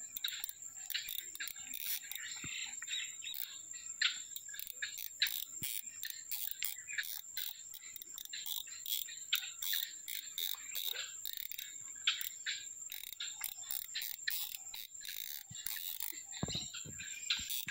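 Frogs and insects calling: a steady high-pitched insect tone under many quick, irregular clicking calls. A few faint low knocks come near the end.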